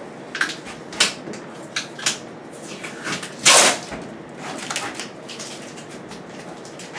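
Protective plastic film being peeled off a stainless-steel appliance panel: scattered crackles and small knocks, with one louder half-second rasp about three and a half seconds in.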